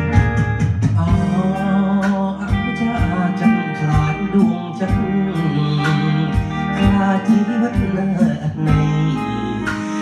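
A man singing an old Khmer song into a handheld microphone over a karaoke backing track with a steady beat.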